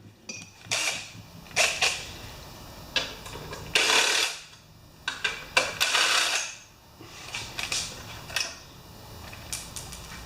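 Hand tools and loose metal parts being worked on a small generator while the recoil starter is unbolted and removed: a string of separate clicks, clatters and scrapes, a few of them longer scraping runs.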